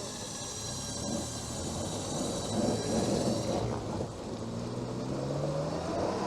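Vehicle engine and winch running under load as the winch hauls a stuck car out of boggy ground. A whine rises steadily in pitch over the last two seconds.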